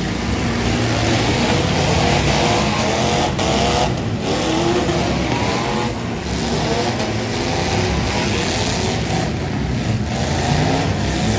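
Several demolition-derby farm trucks' engines revving hard and unevenly at once, pitch rising and falling, as the trucks push and spin their tires in mud.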